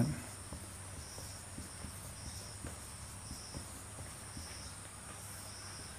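Faint background chirping of insects, short high chirps recurring about once a second over a steady hiss.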